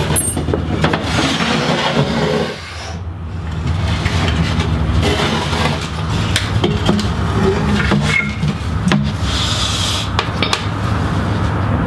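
Wooden shield board and its carved wooden handle being handled and shifted, with rubbing and scraping of wood and scattered light knocks.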